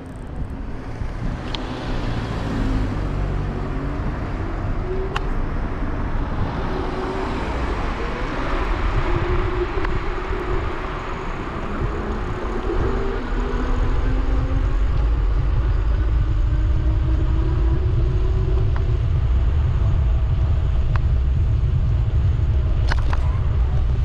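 City street traffic heard from a moving electric scooter. A passing vehicle's engine shifts in pitch over the first half, then a steady low rumble takes over from about halfway on, with a few light clicks.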